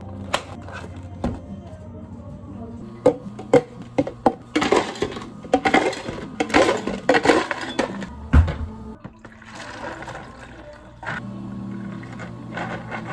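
Ice cubes scooped with a metal scoop and tipped into plastic cups, several clattering pours in a row, ending in a low thump. A quieter steady hum follows.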